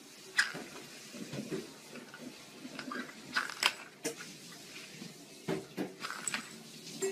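Small round plastic lids clicking and scraping on a wooden floor as a kitten bats and noses at them: a scatter of sharp clicks and knocks, the loudest about half a second in and a close pair around three and a half seconds in.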